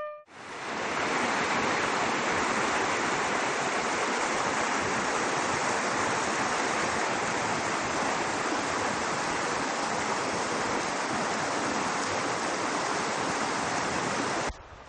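Rocky mountain stream rushing over stones: a steady rush of water that fades in just after the start and cuts off suddenly near the end.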